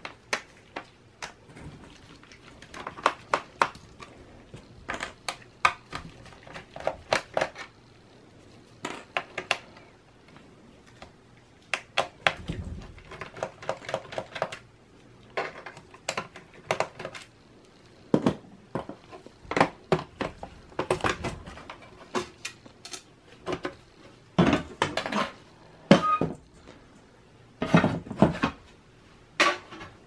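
Small screwdriver and laptop-case handling sounds: irregular clusters of sharp clicks and light rattles as the screws of a Dell Latitude E6540's bottom cover are undone and the cover is worked loose and lifted off, with a few duller knocks.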